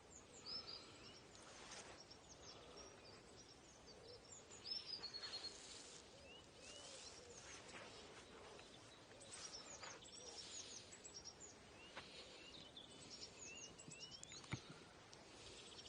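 Faint open-air quiet with small birds chirping now and then, a short trill about five seconds in, and a single sharp tick near the end.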